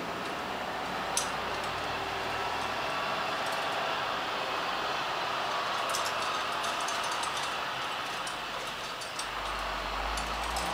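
Steady rushing background noise, with scattered light clicks and clinks that come thickest from about six seconds in and again near the end.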